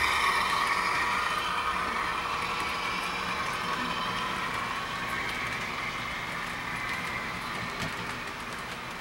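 HO scale model diesel locomotives pulling a container train, the running noise of their motors, gears and wheels on the track fading steadily as the train moves away, with faint clicks in the later seconds.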